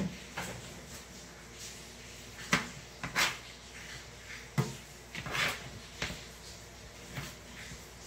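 Kitchen knife chopping tomatoes on a plastic cutting board: irregular sharp knocks of the blade hitting the board, some with a short slicing scrape.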